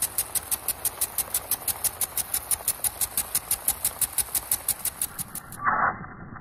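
Impact sprinkler ticking as its spring-loaded arm swings in and out of the water jet: a fast, even clatter of about six or seven ticks a second over the hiss of spray. About five and a half seconds in the ticking cuts off and a short, duller rush of noise follows.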